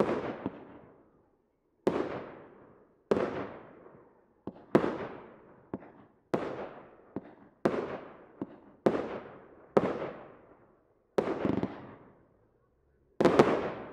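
Firework battery firing shot after shot, a sharp bang about every second or so, each one echoing away before the next. A few smaller pops fall in between.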